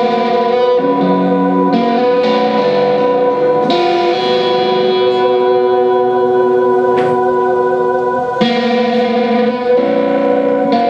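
Electric guitar music played through effects: a few tones held steady throughout under lower notes that change every half second to a second.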